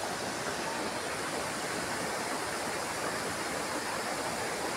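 Floodwater rushing steadily, a continuous even rush of fast-flowing water from a flash flood that burst out of a railway tunnel.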